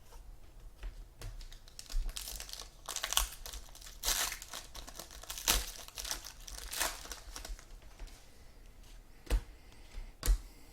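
A trading-card pack wrapper being torn open and crumpled, in crackly bursts. Two sharp taps come near the end as the cards are handled.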